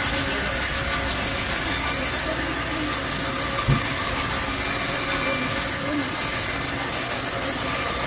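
Vintage 1938-model sawmill running, its blade sawing a squared timber beam lengthwise as the carriage feeds it through, with a steady loud mechanical noise. A single thump sounds a little before halfway.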